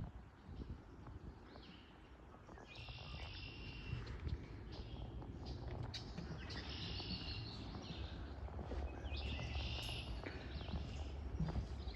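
A songbird singing three short, dense, high trilled phrases a few seconds apart, over a steady low rumble.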